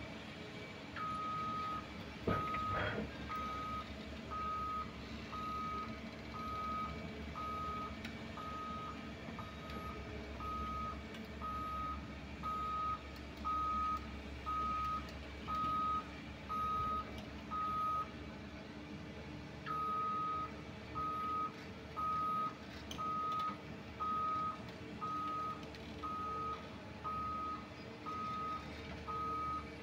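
Back-up alarm on heavy construction machinery beeping steadily about once a second, stopping for about two seconds around two-thirds of the way through, over the steady running of a diesel engine. A single sharp knock sounds about two seconds in.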